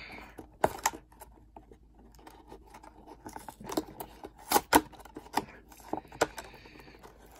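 Hands working open the top flap of a cardboard trading-card box: scattered sharp clicks and crackles of the paperboard, the loudest a little past halfway.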